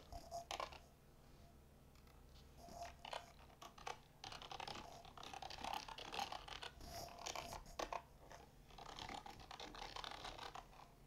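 Faint typing on a computer keyboard: irregular runs of quick keystrokes with short pauses, a few at first, then busiest from about four seconds in.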